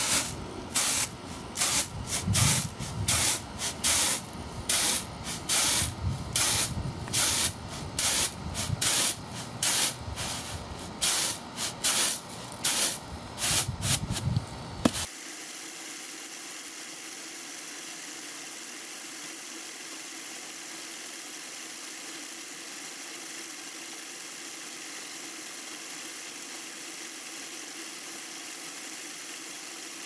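Rice grains swishing and rattling on a flat woven bamboo winnowing tray as it is tossed in quick rhythmic strokes, about two a second. About halfway it cuts off abruptly to a steady faint hiss and hum.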